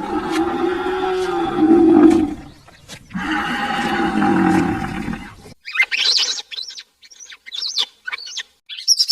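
Animal calls: two long, low calls of about two seconds each, then a run of quick, high bird chirps in the second half.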